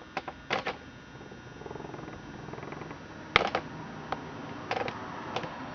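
Clicks and knocks from handling an old McCulloch chainsaw as its pivoting gearbox and bar are turned. There are several sharp clicks, with the loudest knock about three and a half seconds in.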